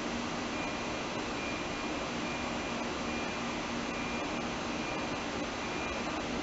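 Electric S-Bahn train pulling out of the station: a steady running noise with a faint low hum and a high whine that come and go.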